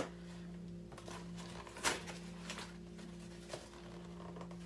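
Cardboard shipping box being handled and opened: a sharp knock at the start and another about two seconds in, with lighter taps and rustles between, over a steady low hum.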